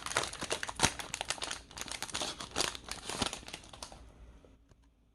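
Pokémon card booster pack's foil wrapper being torn open and crinkled by hand, a dense run of sharp crackles that dies away about four seconds in.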